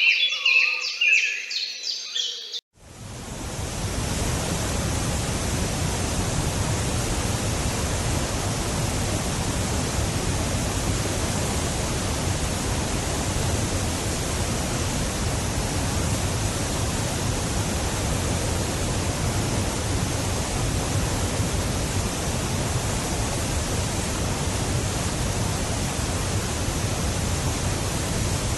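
Birds chirping and singing for the first two and a half seconds, then an abrupt cut to a steady, even rushing of falling water with a deep low rumble in it. The rushing fades in over about a second and holds without change.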